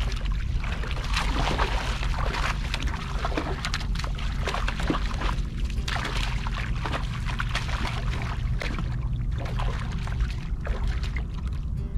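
Water sloshing and splashing against shoreline rocks, in many short irregular splashes, over a steady rumble of wind on the microphone.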